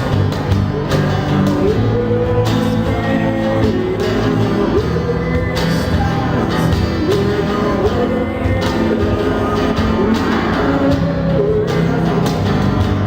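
Acoustic pop-rock band playing live: strummed acoustic guitars over a steady cajón beat, with a singing voice carrying the melody.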